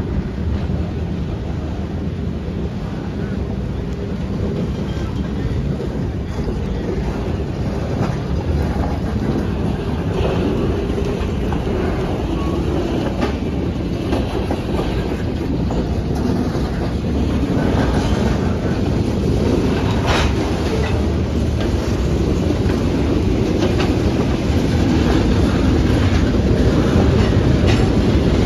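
Freight train's covered hopper cars rolling across a grade crossing: a steady rumble of wheels on rail with irregular clicks and clunks as the wheels pass over the joints, growing gradually louder toward the end.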